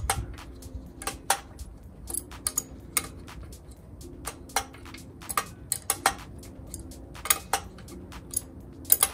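Sharp metallic clicks and clinks from a wrench working a bolt on a steel motorcycle frame. They come a few at a time, irregularly, with short pauses between.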